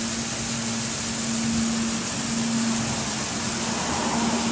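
Water spray from a garden hose nozzle hitting a concrete driveway, a steady hiss and splatter, with a steady low hum underneath.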